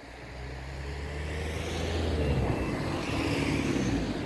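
Regional passenger railcar pulling away from a station stop, its engine running up and growing steadily louder, the low engine note shifting in pitch about halfway through.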